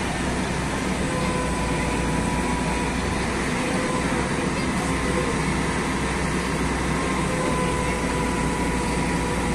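Hino truck-mounted crane's diesel engine running steadily to drive the crane as it lifts a box truck, with a faint steady whine over the rumble.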